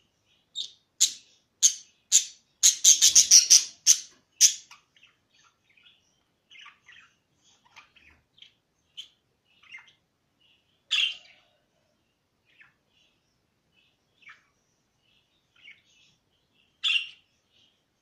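Budgerigars chirping: a quick run of loud, sharp chirps in the first few seconds, then soft scattered twittering with two louder calls, one about halfway through and one near the end.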